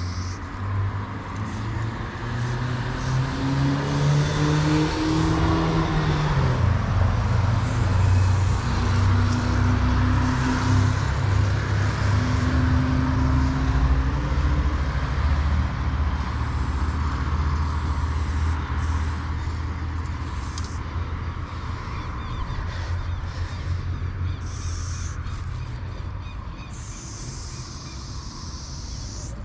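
A heavy road vehicle passes close by on the avenue: its engine note climbs as it accelerates, stays loud for several seconds and then fades away. An aerosol spray can hisses in short bursts near the start and again near the end.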